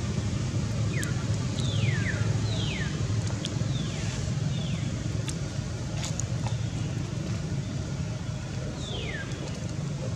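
A steady low outdoor rumble, with a series of short descending whistled calls from birds, clustered in the first half and one more near the end.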